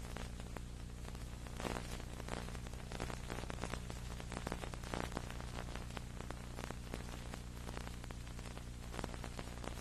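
Steady electrical hum with hiss and crackling static, no program sound: the audio track has dropped out on this old video recording.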